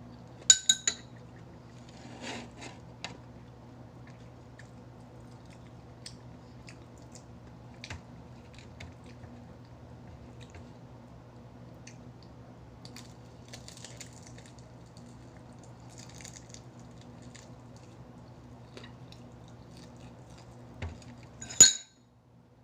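Cutlery clinking against dishes while eating. There are two loud ringing clinks, one about half a second in and one near the end, with faint scattered taps between them over a steady low hum.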